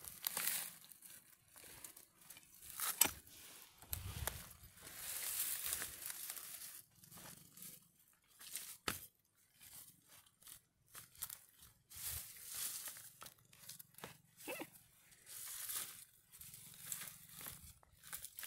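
A long-handled digging tool striking and scraping into dry, stony soil around a cassava plant at irregular intervals, with soil crunching and roots tearing as the plant is worked loose.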